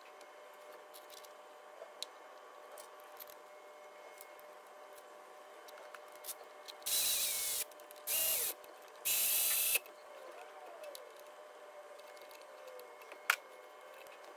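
Three short hissing bursts, each under a second, over a faint steady hum with a few light clicks from work in an engine bay.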